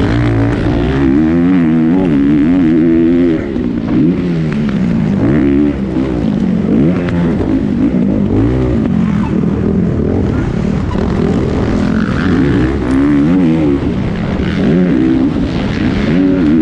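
A 450cc four-stroke motocross bike engine under race throttle, heard from a camera mounted on the bike. Its pitch climbs and falls again and again as the rider accelerates, shifts and backs off, with brief dips where the throttle is shut.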